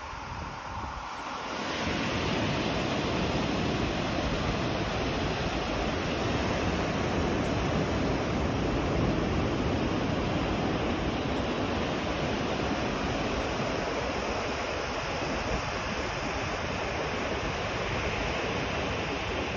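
Ocean surf breaking and washing onto a sandy beach, a steady rush that grows louder about two seconds in, with wind rumbling on the microphone.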